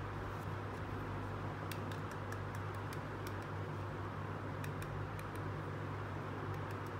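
Steady low hum and hiss of room noise. Over it come scattered faint clicks and taps as a small plastic toy hairbrush is handled.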